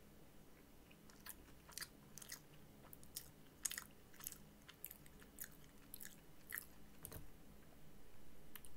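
A person chewing a mouthful of fried chicken sandwich, faint, with soft irregular mouth clicks every half second or so.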